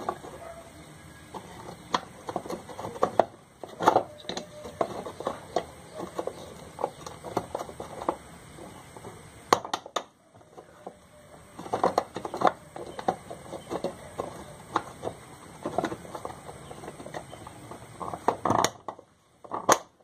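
Hard plastic clicking, tapping and scraping as the small centre cap is turned and pressed onto the plastic pulsator of an Easy 12 kg twin-tub washing machine's wash tub. The clicks are irregular, with a few louder knocks now and then.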